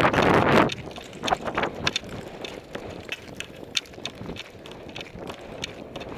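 A person running on foot: irregular footfalls and gear clatter with sharp clicks. Wind buffets the microphone loudly in the first second.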